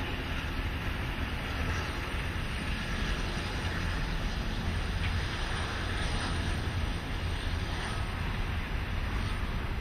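Freight train's container wagons rolling past, a steady rumble of wheels on rail, with wind noise on the microphone.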